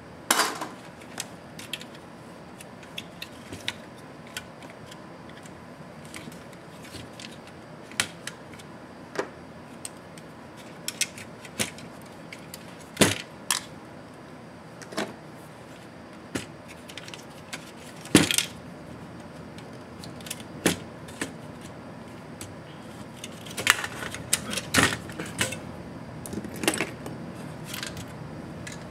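Scattered small clicks, taps and knocks of hand work on a plastic laptop bottom case: a precision screwdriver and the hollow plastic case and its wires being handled, with a few louder knocks now and then.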